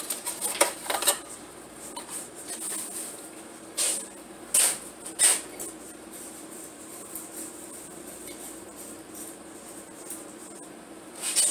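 Cardboard packaging of an LED light bulb crinkling as the box is opened. About four to five seconds in come three sharp clicks, then faint scraping and squeaking as the bulb is handled and swapped in a ceiling light fixture.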